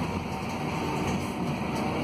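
Scania DC09 five-cylinder diesel of a Scania K280UB city bus running under load on a hill climb, heard from inside the passenger cabin as a steady low rumble mixed with road and tyre noise.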